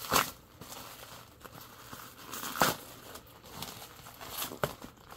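Packing material being handled while a package is unpacked: intermittent crinkling and rustling, with sharper crackles just after the start, about two and a half seconds in and again near four and a half seconds.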